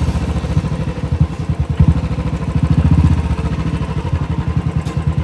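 Motorcycle engine running under way, with a rapid pulsing beat that swells and eases with the throttle.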